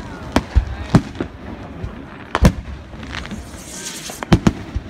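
Aerial fireworks shells bursting overhead: about six sharp bangs, the loudest about halfway through and two in quick succession near the end, with a brief high hiss shortly before them.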